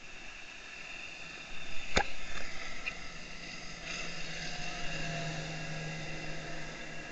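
Motorboat running at speed, a steady engine whine over rushing water and wind. There is a sharp knock about two seconds in.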